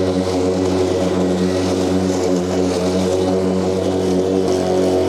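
Makita battery-powered commercial lawn mower running at full power, its blade cutting long grass at the lowest height setting with a steady hum. It powers through without stalling.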